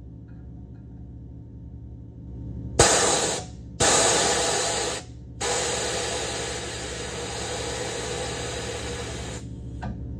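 Compressed air hissing out of a truck-mounted train-horn air tank as pressure is bled off, in three sudden blasts: two short ones about three seconds in, then a longer one of about four seconds.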